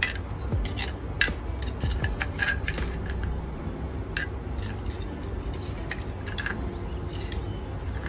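Hot oil in a frying pan crackling, with irregular sharp pops and spits, over a steady low hum.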